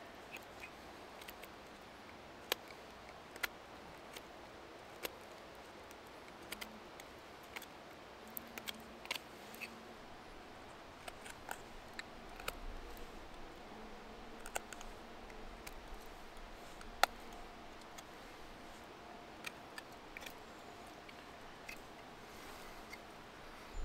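Swiss Army knife blade carving into a wooden branch: irregular, sharp snicks and clicks as the blade bites and shavings break off, a few seconds apart at most.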